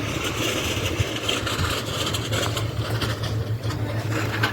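An engine running steadily, with a constant low hum.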